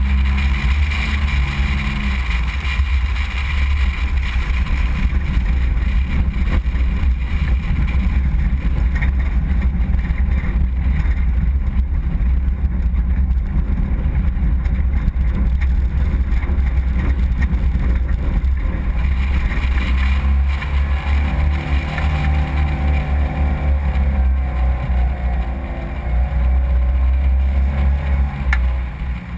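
Mitsubishi Pajero 4x4 driving hard over desert sand: a loud, continuous low rumble of engine and running gear. In the last third a steady engine note stands out more clearly.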